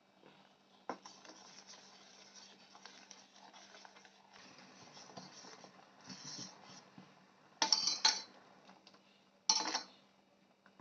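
Metal kitchen utensils and pots being handled: a sharp click, soft scraping and rustling, then two short, louder clatters of metal near the end.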